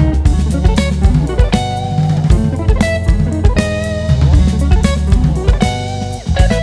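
Instrumental Brazilian jazz played by a trio: an electric guitar melody over electric bass and drum kit, with steady drum hits under sustained bass notes.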